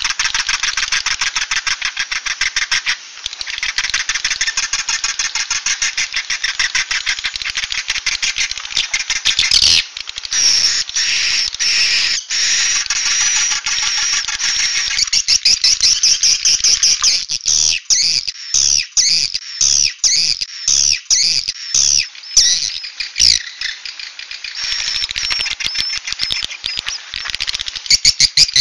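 Recorded calls of edible-nest swiftlets, the "suara inap" roosting call played as a lure to draw swiftlets into a swiftlet house. It is a dense, fast chittering twitter. After about ten seconds it gives way to higher, sharper chirps, broken by short gaps in the second half.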